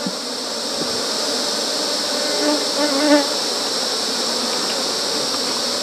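Honeybees buzzing steadily around an open hive, with a louder pitched buzz from a bee flying close to the microphone about two and a half to three seconds in, over a steady high-pitched insect hiss.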